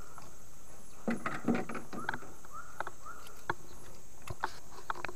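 Steady high-pitched drone of insects from the riverside forest, with a few short rising whistled notes repeated in the middle. A few light knocks and faint voice fragments come and go underneath.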